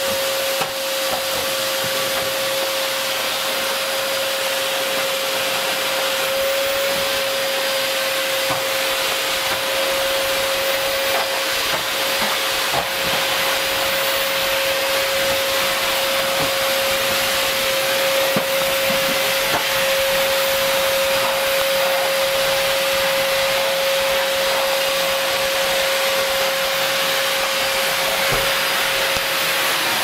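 Vacuum cleaner running steadily: a constant motor whine at one pitch over the hiss of the airflow.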